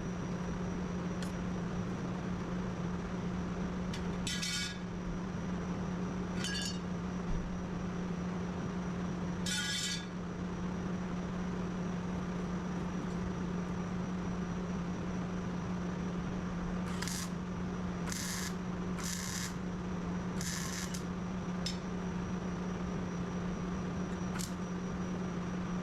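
Short, separate scraping and rubbing strokes of hand tools on a car body panel during body-filler (bondo) work, some coming in quick succession, over a steady low hum.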